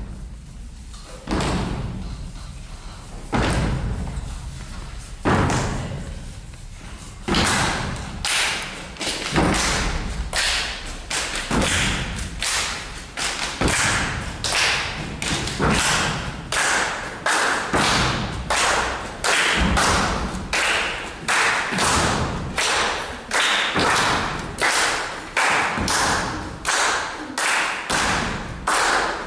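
A group of children doing body percussion. It opens with a few heavy thumps a couple of seconds apart, then settles about seven seconds in into a steady rhythm of hand claps and thumps, slightly more than one a second.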